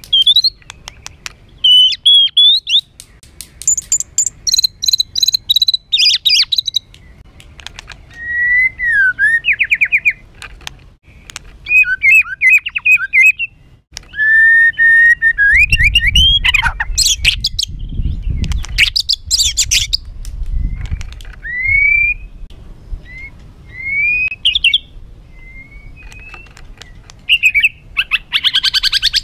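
White-rumped shama (murai batu) singing a harsh, excited song: varied whistled phrases, gliding notes, fast trills and rattling notes, with short pauses between phrases. It is the fired-up song kept as a trigger recording to rouse other shamas.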